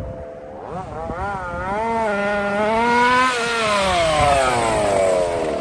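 Petrol RC car's small two-stroke engine revving up and down. A few quick throttle blips about a second in, then the pitch climbs to a high rev about three seconds in and falls away toward the end.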